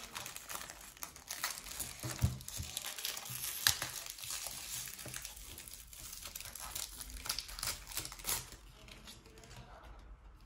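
Wrapper of a football trading-card pack crinkling and tearing as it is opened by hand, in many small irregular crackles that thin out near the end.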